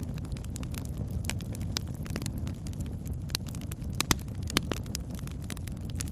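Campfire burning: wood crackling and popping in irregular sharp snaps over a steady low rumble, with the loudest pops about four seconds in.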